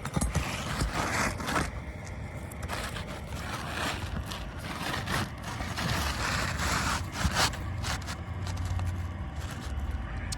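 Roof shingles scraping and rustling against each other in several bursts as a shingle is worked into place under the course above.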